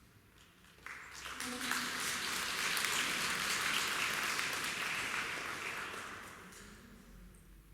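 Audience applauding. The applause starts about a second in, holds steady for a few seconds, then dies away near the end.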